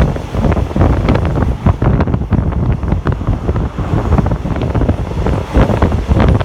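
Wind buffeting the microphone from a moving train's window, over the train's running rumble.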